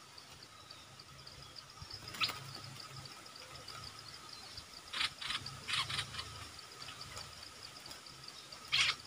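Steady forest insect drone at two high pitches, with a few short, sharp calls or clicks about two seconds in, around five to six seconds in, and again near the end.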